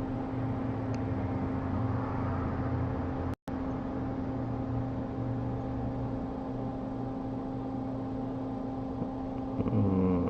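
Steady mechanical hum of a small motor or fan with an even hiss, cut off for an instant about a third of the way through.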